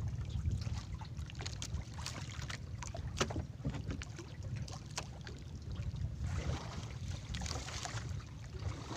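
Steady low wind rumble on the microphone aboard a small fishing boat, with scattered sharp clicks and knocks as a freshly landed skipjack tuna is handled in the boat.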